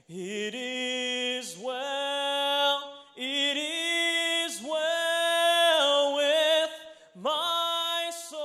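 A man singing unaccompanied, holding long notes with vibrato in three phrases, with short breaks for breath about three and seven seconds in.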